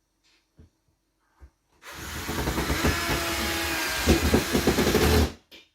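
Power drill driving a screw up into the ceiling to fasten the pot rack, starting about two seconds in and running for about three and a half seconds, the motor sound growing choppier near the end as the screw bites. A few light clicks come before it.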